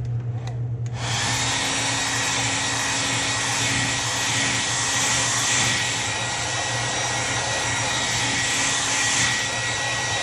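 Handheld hot-air blower switched on about a second in and blowing steadily with a high whine, heat-setting a fresh airbrushed paint coat on a fishing lure.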